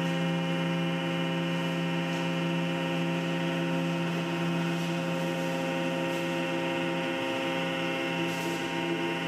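CNC gantry mill spindle turning a 1/4-inch 90-degree chamfer mill at 8000 RPM, taking a light finishing chamfer around the edge of an aluminum part: a steady whine of several held tones, with a couple of short hisses.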